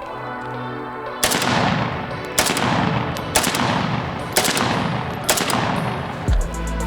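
Five single rifle shots from a 7.62x39 AK-pattern rifle fired with no muzzle brake fitted, about one a second, each with a long echoing tail. Background music with a steady beat plays underneath.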